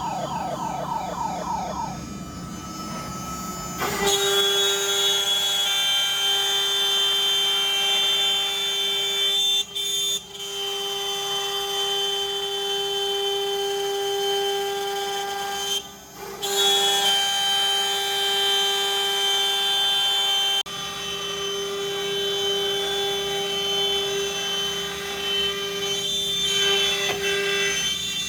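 ShopBot CNC router's spindle running at high speed, with rising whines in the first two seconds as the machine starts moving. About four seconds in it turns into a loud, steady whine as the bit starts cutting through plywood, with two brief drops around ten and sixteen seconds.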